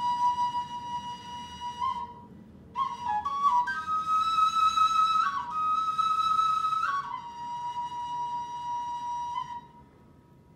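End-blown bamboo flute playing a slow, breathy melody of long held notes: a long low note, a few short stepping notes, two higher held notes, then a long low note again that fades out near the end.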